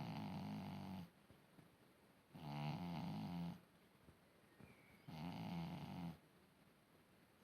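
Pet snoring loudly in steady sleep: one snore about every two and a half seconds, each just over a second long. One is already under way at the start and ends about a second in, and two more follow.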